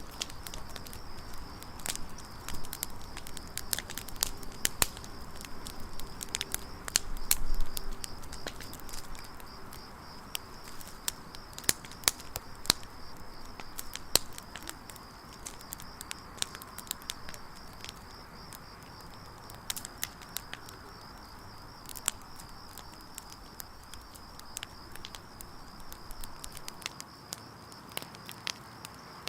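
Firewood burning in a campfire, crackling with frequent sharp pops and snaps. A steady high-pitched trill runs underneath, and a louder dull knock comes about seven seconds in.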